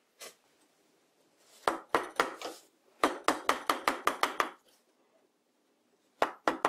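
Quick runs of sharp hand-struck knocks on the lathe and its wooden workpiece: one knock, then runs of about four, nine and five strikes, several a second, with the lathe's motor not running.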